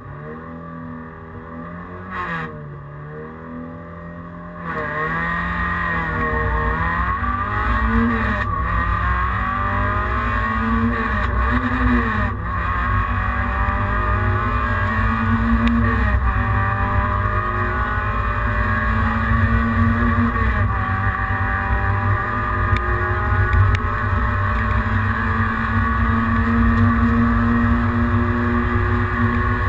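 Peugeot 106 rally car's four-cylinder engine heard from inside the cabin: running quieter with a brief rev at the start line, then getting louder about four seconds in as the car launches. It accelerates hard through the gears, the pitch rising in each gear and dropping at every upshift.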